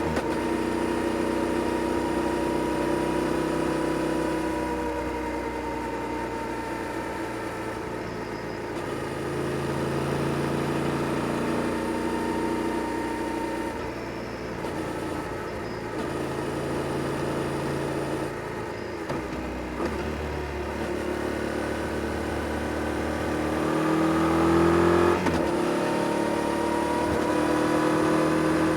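Yamaha Tracer 7 GT's parallel-twin engine on its stock exhaust, heard while riding. The revs rise and fall repeatedly as the bike accelerates and eases off, with the strongest pull near the end.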